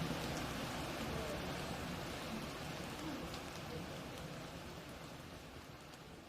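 Steady patter of rain and dripping water in a forest, fading out gradually.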